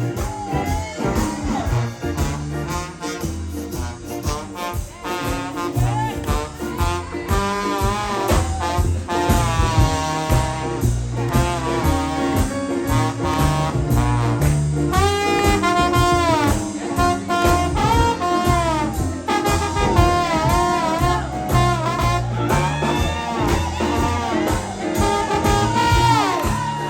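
Live blues band playing an instrumental passage with no singing: brass over a steady beat of drums, piano and upright bass, with a lead line of sliding, bending notes.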